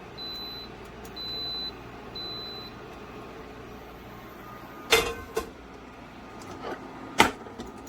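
Portable induction cooktop beeping its error alarm three times, about once a second, because the pan on it is not induction-compatible. Two sharp knocks follow a couple of seconds apart.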